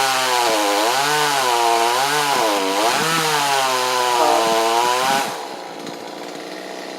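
Chainsaw cutting bois d'arc (Osage orange) hardwood, its engine pitch rising and falling under the cut. About five seconds in it drops back to a quieter idle.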